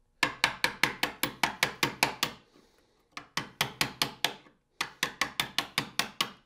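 A small hammer rapidly tapping a chisel to chop out the waste of a rabbet in a wooden board, about five strikes a second. The strikes come in three runs, with short pauses between them.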